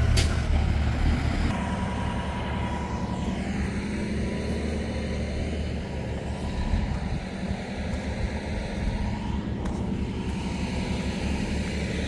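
Crawler bulldozer's diesel engine running steadily, its sound sitting mostly low.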